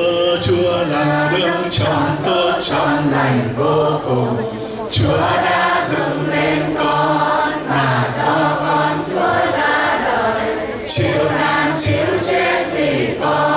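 Choir singing a liturgical hymn, several voices together in long sung phrases, with short breaks between phrases about five and eleven seconds in.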